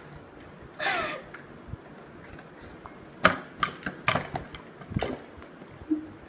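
A short vocal sound about a second in, then a run of sharp clicks and knocks from hands handling a ceramic dinner plate on a table.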